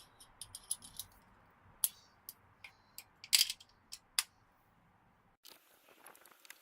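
A series of sharp clicks and taps as a screwdriver works the mounting screws of a Nissan NV200's factory head unit, the loudest about three and a half seconds in.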